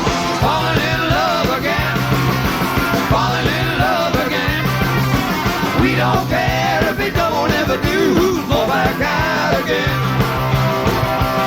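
Rock band playing live with no vocals: a wavering lead guitar line with bent notes over electric bass and drums, the bass repeating a steady figure.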